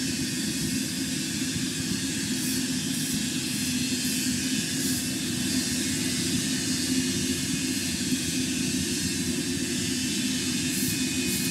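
Steady drone of a large crankshaft lathe spinning a giant diesel engine crankshaft, a low hum under an even hiss.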